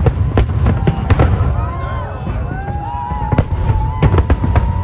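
Fireworks display going off in rapid succession: deep rumbling booms and many sharp bangs and crackles, with several whistling tones gliding up and down in pitch and one held whistle in the second half.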